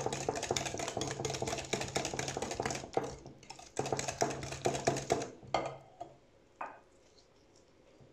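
Rapid, even clicking of batter being beaten in a bowl, with a low steady hum running under the clicks. It breaks off briefly about three seconds in, resumes, and stops a little after five seconds, followed by a couple of light clinks.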